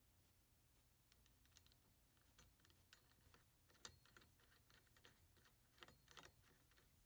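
Near silence: faint room tone with scattered small clicks, the loudest about four seconds in and a few more close together near six seconds.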